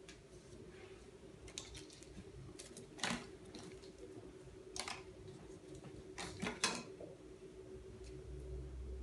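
A few scattered clicks and rustles of something being handled, the sharpest about three seconds in and twice more between six and seven seconds, over a steady low hum.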